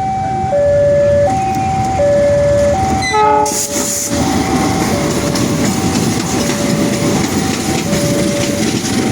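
Railway level crossing alarm sounding a repeating two-tone chime, the pitch alternating high and low about every 0.7 s. From about three and a half seconds in, a train passes close by, and its loud wheel and rail noise runs under the chime.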